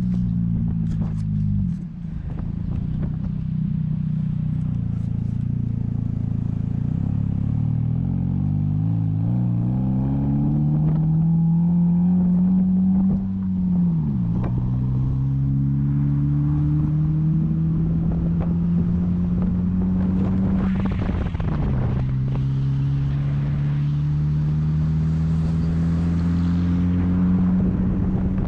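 An engine pulling up through the gears: its pitch rises steadily, then drops sharply at each shift, about two, fourteen and twenty-one seconds in.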